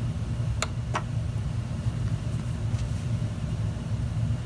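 Two sharp clicks about a third of a second apart, about half a second in: the trackpad button of a PowerBook 1400 being clicked to choose Shut Down. A steady low hum runs underneath.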